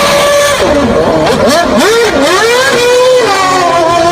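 Racing car engine sound, its pitch holding steady, then climbing and dropping again and again as it revs up and shifts, over a noisy rush.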